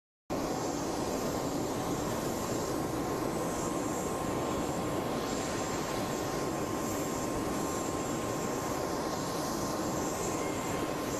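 Aircraft turbine engine running steadily: an even rushing noise with a constant high whine, starting abruptly a moment in.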